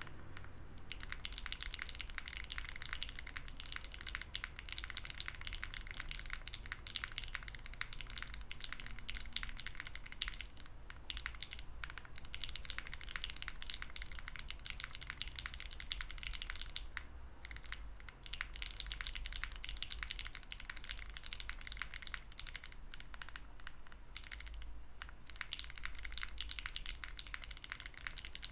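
Fast continuous typing on a mechanical keyboard with lubed LOGA Nomyen switches on a POM plate with no foam, GMK keycaps: a soft, steady clatter of keystrokes with a few brief pauses.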